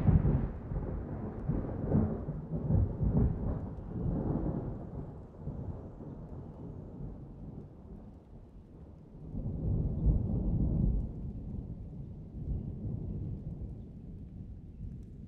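Wind buffeting the microphone in gusts, a low rumble that is loudest at the start, swells again about two-thirds of the way through, then dies down.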